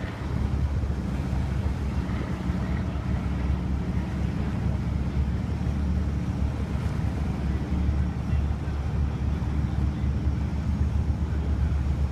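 Steady low rumble of boat engines under tow, with wind buffeting the microphone.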